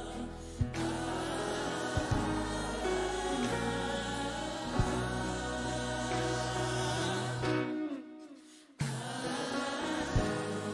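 Gospel worship music: a choir or group singing over a band with a steady drum beat. About eight seconds in, the music briefly fades almost to nothing, then cuts back in abruptly.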